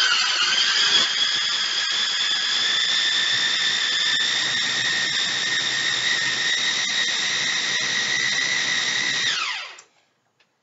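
Countertop electric food processor running, chopping chunks of avocado: a loud, steady high motor whine that settles within the first second, then falls in pitch and stops as it is switched off about nine and a half seconds in.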